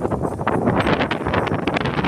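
Wind buffeting a phone's microphone, an uneven rough rumble that gusts up and down.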